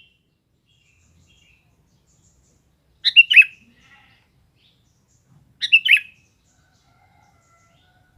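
Sooty-headed bulbul (kutilang) calling: two short phrases of several quick notes, one about three seconds in and one about five and a half seconds in, with silence between.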